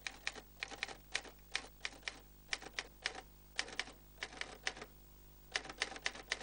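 Mechanical typewriter typing: irregular runs of sharp key strikes, with a short pause about five seconds in.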